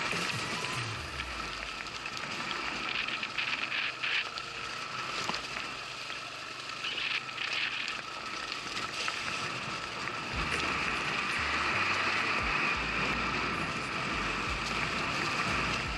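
Electric enduro motorcycle riding on a trail: a steady high-pitched motor whine over a wash of tyre and wind noise. The whine grows stronger after about ten seconds, with low rumbles mixed in.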